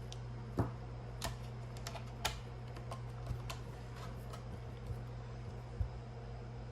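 Irregular light clicks and taps, with a couple of duller knocks, from the plastic body and parts of a 1/24-scale RC crawler truck being handled by hand.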